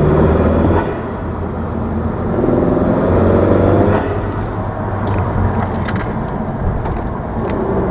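2017 Honda Civic's 1.5-litre turbocharged four-cylinder with an aftermarket cold air intake, pulling up through the revs from low rpm, with engine and intake noise rising in pitch. It is loudest in the first second and again from about two and a half to four seconds in, with a few short sharp ticks in the second half.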